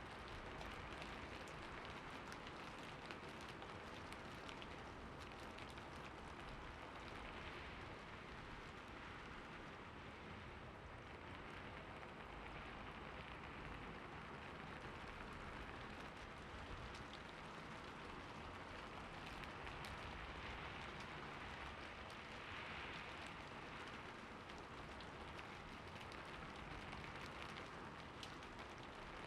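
Light rain falling steadily, a soft even hiss dotted with many small drop ticks.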